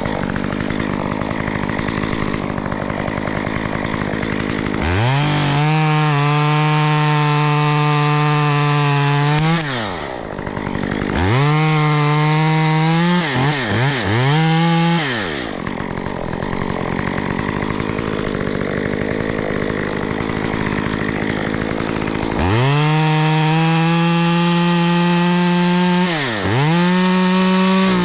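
Two-stroke chainsaw idling, then opened up to full throttle three times for several seconds each, cutting wood, with quick throttle blips between. Each run rises sharply in pitch and drops back to idle.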